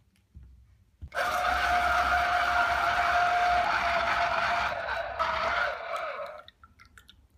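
Mondial E-20 electric citrus juicer's 85 W motor running as a pomegranate half is pressed onto its spinning reamer, a steady whirring whine that starts about a second in. Near the end the whine falls in pitch as the motor winds down and stops.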